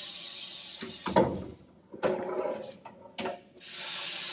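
Steady air hiss from the wheel balancer's pneumatic wheel lift, broken about a second in by three short rubbing scrapes as the tyre and wheel are slid off the balancer shaft. The hiss starts again near the end.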